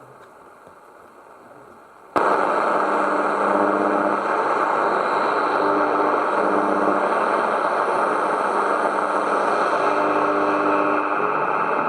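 Cat Radio RX801 radio receiver playing static: a faint hiss for about two seconds, then a loud, even rush of static that starts suddenly, with faint steady tones of a weak station beneath it.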